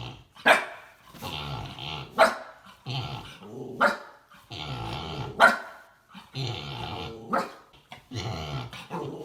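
A puppy barking and growling in repeated fits: a sharp yap about every one and a half to two seconds, each running into a drawn-out grumbling growl. He is upset that his sleeping pig companion won't wake up.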